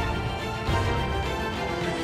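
Outro theme music, dense and layered, with heavy low drum hits at the start and again about two-thirds of a second in.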